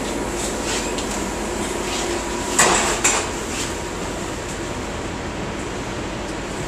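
Steady background rumble and hiss inside a subway car, with two sharp knocks close together about two and a half and three seconds in, and a few faint clicks.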